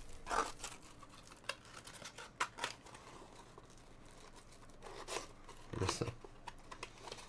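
Packaging being handled and unwrapped: scattered rustling, crinkling and light clicks, with louder handling noises near the start and about six seconds in.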